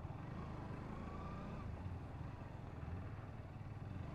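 Honda CBR125's single-cylinder four-stroke engine running steadily while riding, with road and wind noise.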